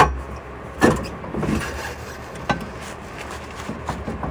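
Metal clanks and knocks of a long pry bar levering a new rear strut's lower end down into position in a 2014 Jeep Compass's rear suspension. A sharp clank at the start, another about a second in, then a few lighter knocks.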